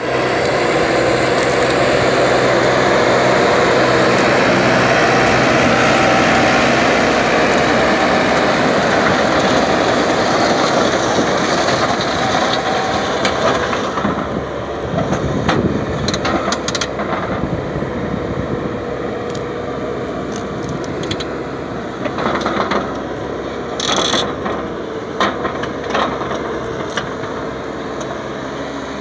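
Tractor engine running under load while pulling a PTO-driven Tarımsan 3-metre rotary tiller through dry soil, the tiller blades churning the earth. It is loudest for the first dozen seconds, then a little quieter, with scattered sharp clicks in the second half.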